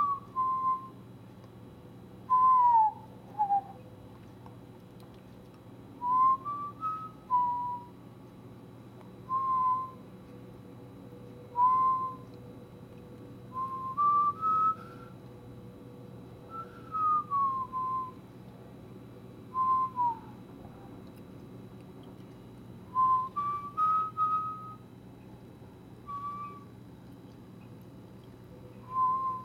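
Whistling in short phrases of one to four clear notes, some gliding downward and some stepping upward, repeating every two to three seconds over a steady low hum.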